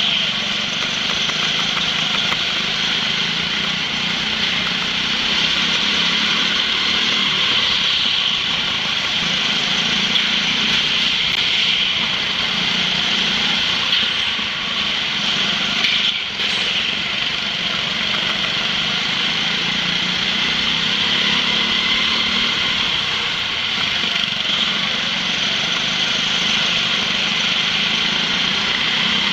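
Go-kart engines running steadily at racing speed, heard from on board one kart with other karts close ahead. The sound dips briefly about sixteen seconds in.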